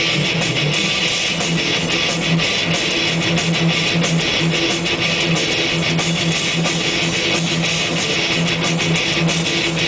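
Heavy metal music carried by a distorted electric guitar riff that repeats steadily, with no vocals.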